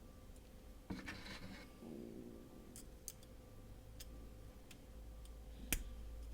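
Faint handling sounds of a folding knife being taken apart: a short scrape about a second in and a few small, sharp clicks of metal parts, the sharpest near the end.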